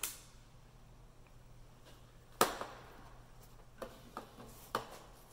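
Scattered clicks and knocks of hand tools being handled and set down on hard surfaces. A sharp click comes right at the start and the loudest knock about two and a half seconds in, followed by a few lighter clacks.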